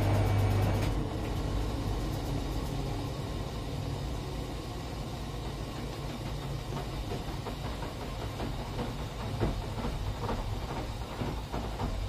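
Wyss Mirella Universal 2000 washing machine: the steady low hum of its drum motor stops about a second in, and the drum coasts down with uneven knocks and swishes as it slows.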